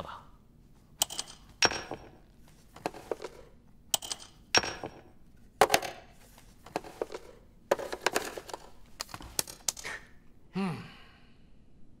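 Irregular sharp clicks and clacks of small hard objects being handled, coming in uneven groups for about nine seconds. A short grunt-like voice follows about ten and a half seconds in.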